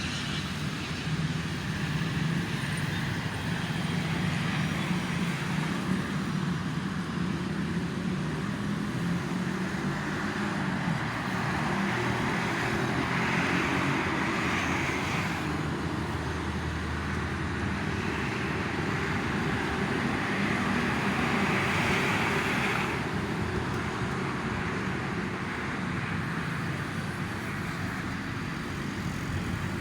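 Steady road traffic on a toll road, with tyre and engine noise swelling as vehicles pass, twice louder for a few seconds around the middle.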